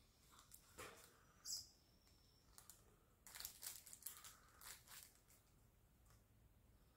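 Near silence: room tone with faint scattered clicks and rustles, most of them in a cluster in the middle, and one short high tone about a second and a half in.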